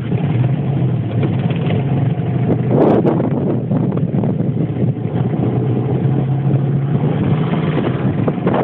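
Boat motor running steadily, with wind and water noise on the microphone.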